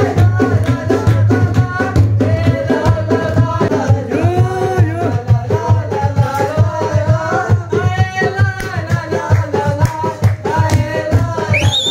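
Several men singing a folk song together to a steady beat of hand-clapping and hand-drumming on a metal trunk. Just before the end, a shrill whistle-like tone starts above the singing.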